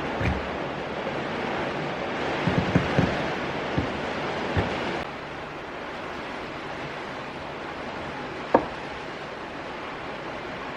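Steady hiss of heavy rain, with a few light knocks of tools on wood in the first half and one sharp tap later on.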